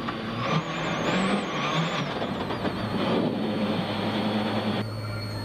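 World Rally car engine running hard at stage speed, heard from inside the cockpit over loud tyre and road noise, its pitch wavering with the throttle.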